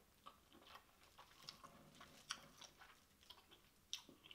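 Faint close-miked mouth sounds of eating sauce-dipped king crab meat: soft wet chewing and lip smacks, a string of small irregular clicks, the sharpest about two and four seconds in.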